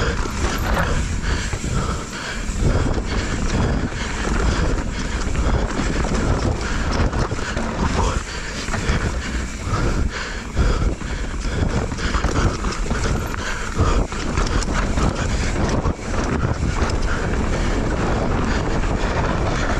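Mountain bike descending a dirt trail: wind buffeting the microphone, tyres rolling over dirt and rocks, and the bike rattling with frequent knocks over bumps. The knocks thin out and the noise steadies in the last few seconds as the trail smooths out.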